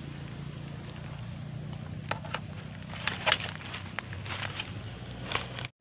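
Dry leaf litter crackling and rustling under footsteps in a few short bursts, the loudest about three seconds in, over a steady low hum.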